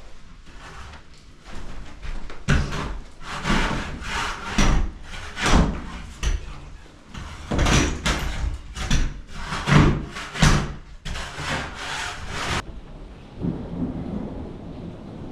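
Wood being scraped and broken out by hand: a run of rough scraping, cracking strokes, about two a second, that stops a few seconds before the end.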